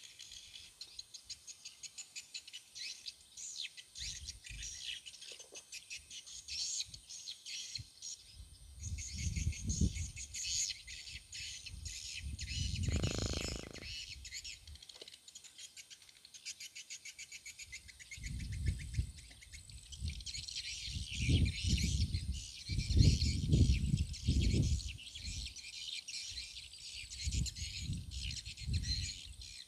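Birds chirping and insects trilling in rapid, even pulses in swamp grass. Several low rumbling bursts come and go in the middle and second half, louder than the chirping.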